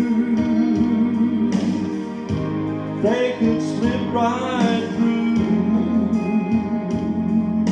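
A man singing a country gospel song into a microphone over instrumental accompaniment, with wavering held notes about three to five seconds in.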